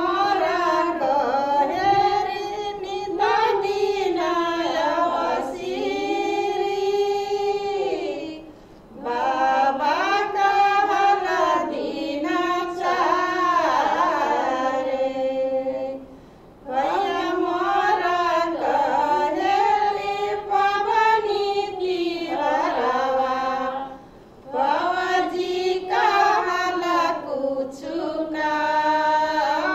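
Female voices singing a Tharu folk song without instruments, in phrases of about eight seconds with a short breath between each.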